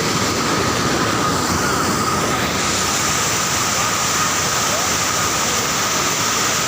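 Floodwater pouring over a waterfall in full spate: a loud, steady rush of water.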